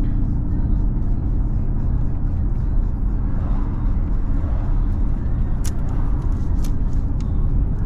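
Steady low rumble of a car driving, heard from inside the cabin: engine and tyre noise, with a couple of faint ticks a little past the middle.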